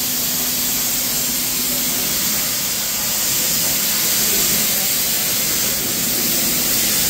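CNC plasma cutter cutting a metal sheet: a steady, loud hiss of the plasma arc and compressed air, with a faint steady hum beneath it.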